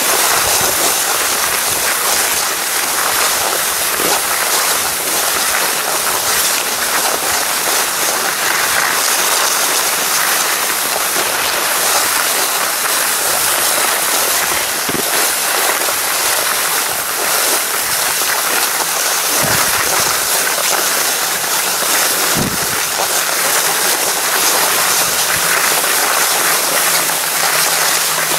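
Skis hissing steadily as they slide over groomed snow while being towed up a T-bar lift, with a couple of soft low bumps past the middle.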